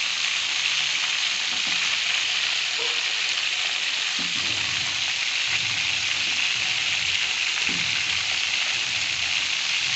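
Whole quails frying in hot oil in a pan: a steady sizzle.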